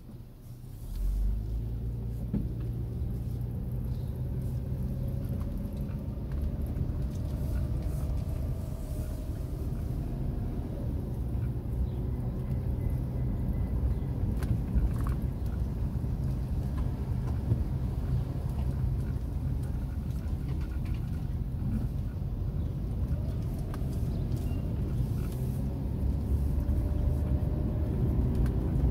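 Car engine and road rumble heard from inside the cabin, rising in level about a second in as the car pulls away. It then runs steadily as the car drives on, with the engine's pitch rising at times as it accelerates.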